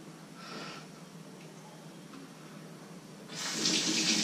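Kitchen tap turned on near the end, water running steadily into the sink after a few seconds of faint hiss.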